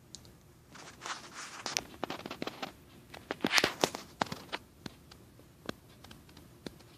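Handling noise: irregular taps, clicks and rustles as the camera and phone are moved, busiest and loudest about three and a half to four seconds in and thinning out by about six seconds.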